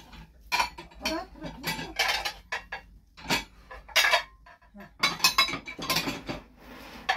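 Plates clattering and clinking as they are stacked one after another into a dishwasher's lower rack, a quick irregular run of knocks with a short lull partway through.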